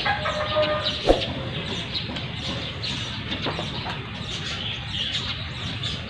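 A rooster's call trails off in the first second, with a single sharp click about a second in, followed by a steady background of clucking chickens and small birds chirping.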